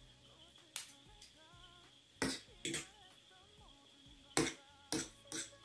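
Metal cutlery clinking against a ceramic plate while spicy instant noodles are mixed, about six sharp clinks spread over a few seconds. Faint background music plays underneath.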